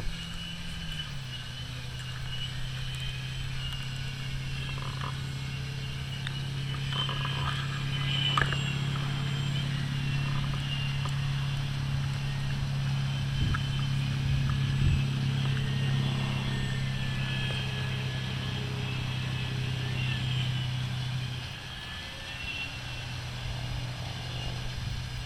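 RC model plane's motor and propeller running: a steady low drone that drops in pitch about a second in, with a thin high whine that wavers in pitch. The drone falls away briefly near the end, then resumes.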